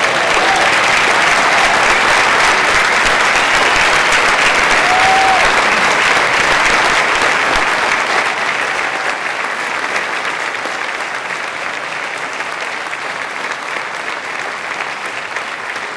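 Audience applauding loudly, strongest in the first half and easing off slightly toward the end.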